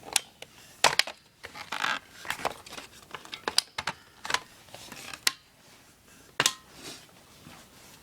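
Plastic spring airsoft gun being handled: irregular clicks, knocks and rustles from its plastic and metal parts, about a dozen sharp ones, the loudest about a second in and near the start of the last third.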